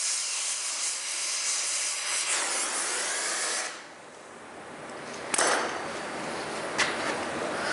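Propane torch burning with a steady hiss as it heats a rusted brake drum retainer screw red hot to free it. The hiss cuts off suddenly about three and a half seconds in, then there is a sharp metallic knock a second and a half later and a lighter click near the end.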